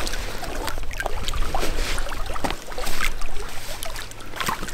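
Small waves of lake water lapping and splashing against shore rocks, with wind rumbling on the microphone.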